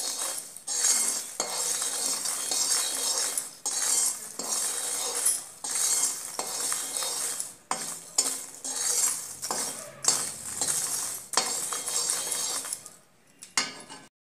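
A steel spoon scrapes and stirs puffed lotus seeds (makhana) around a kadhai, in repeated strokes about once a second. The seeds are roasting in a little ghee until crunchy. The stirring briefly goes quieter near the end.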